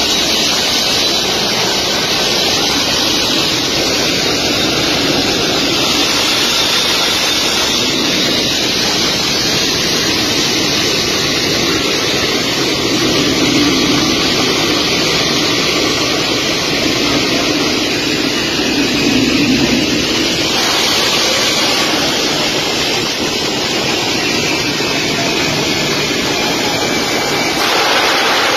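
Boeing C-17 Globemaster III transport's turbofan jet engines running loud and steady as the plane moves along the runway, heard from right on the aircraft with rushing wind over the microphone.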